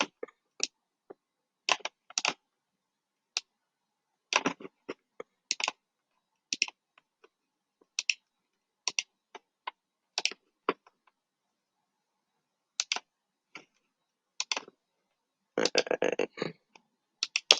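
Scattered clicks from a computer mouse and keyboard: single clicks and short quick runs, with a denser burst of clicking near the end.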